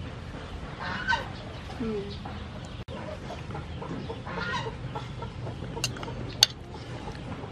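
Domestic fowl calling twice, over a steady low background hum. Near the end come two sharp clinks, a metal spoon against the soup bowl, the second the loudest sound.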